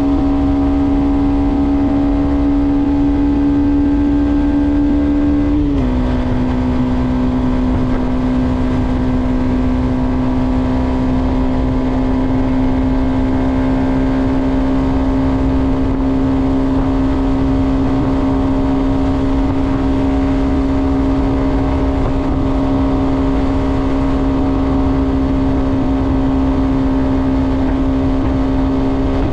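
Yamaha XSR125's single-cylinder four-stroke engine running steadily at cruise, over a low rush of wind and road noise. About six seconds in the engine note drops a little and then holds steady.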